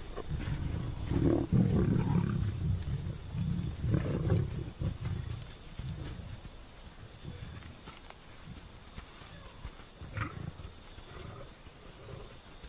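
Asiatic lions growling over a kill as the pride crowds in to feed, loudest in the first five seconds and quieter after. A steady, high-pitched insect trill runs underneath.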